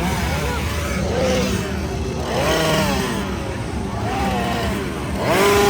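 Chainsaw engines running with a steady low drone, revved up and down in repeated swells about once a second.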